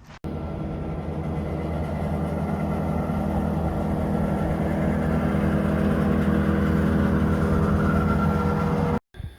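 A motor vehicle's engine idling steadily, with a deep hum of several steady tones that grows slightly louder, cut off abruptly near the end.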